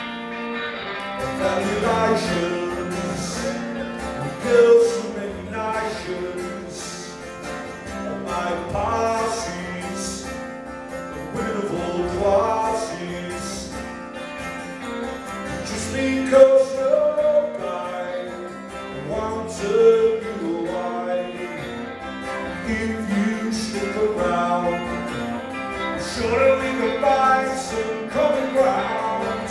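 Live song: a man singing over strummed acoustic guitar with a second, electric guitar.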